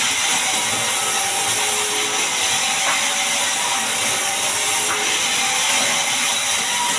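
Band sawmill cutting a large mahogany log: a loud, steady, hissing saw noise that does not let up.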